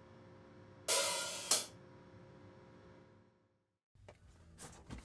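A cymbal crash in a short music sting, sounding about a second in and ringing away over the next two seconds over a faint held note. A few small clicks follow near the end.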